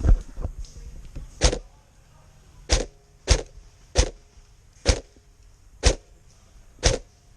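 Airsoft gun firing single shots, seven sharp cracks spaced roughly a second apart, slightly uneven.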